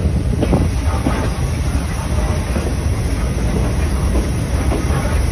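Class 101 diesel multiple unit moving, heard from on board: a steady, loud low rumble of the underfloor diesel engines and the wheels running on the rails.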